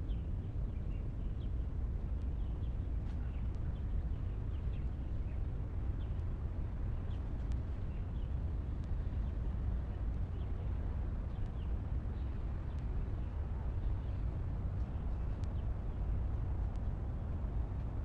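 Outdoor ambience: a steady low rumble with small birds chirping, short high calls scattered throughout.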